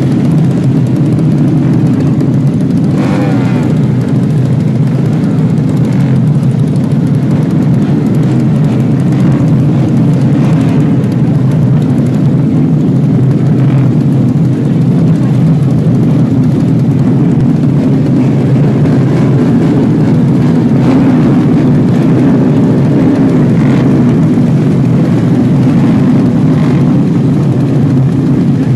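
A pack of Yamaha race motorcycles running together on the starting grid: a dense, steady engine drone, with throttles blipped now and then into short revs.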